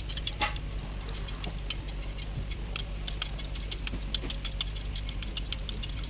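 Hand tools on the engine's metal parts, clicking and clinking in quick, irregular ticks, over a steady low hum.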